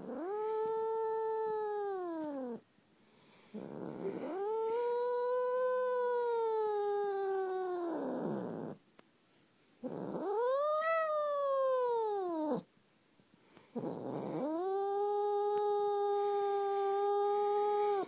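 Domestic cat yowling: four long, drawn-out moaning calls of several seconds each, with short pauses between. The first two slide down in pitch at the end, the third arches up and falls back, and the last holds a steady pitch.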